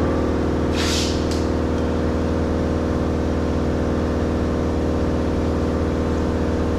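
An electric compressor motor for the spray-painting rig starts abruptly and runs steadily with a low, even hum. A short hiss of air comes about a second in.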